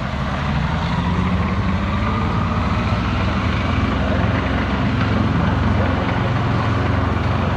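Heavy engine running steadily, with a low hum that rises slightly in pitch over the first few seconds.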